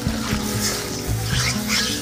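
Background instrumental music with held bass notes, over water splashing into the curry in the pan.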